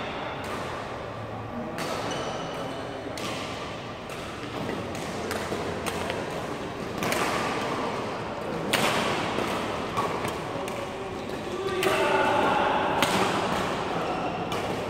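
Badminton rally: racket strings striking the shuttlecock in sharp smacks every second or two, echoing in the hall, with voices in the background.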